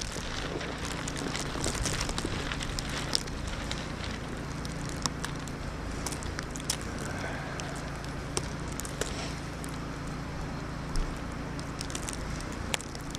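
Steady outdoor storm noise, wind-like, with scattered light ticks and crackles throughout and a faint low hum underneath.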